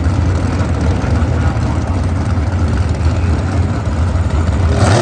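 Super Gas dragster engines idling with a loud, steady low rumble, and a brief sharper burst of sound near the end.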